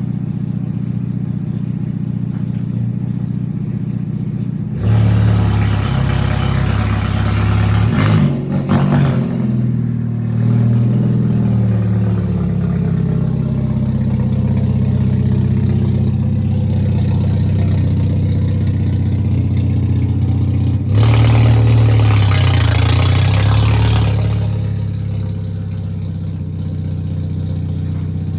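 Hyundai Veloster N's turbocharged 2.0-litre four-cylinder running loud with its exhaust removed, idling steadily and revved twice, about five seconds in and again around twenty-one seconds in.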